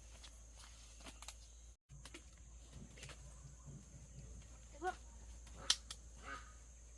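Two short animal calls over a quiet background, one about five seconds in and one about six seconds in, with a few light clicks and one sharp click between them.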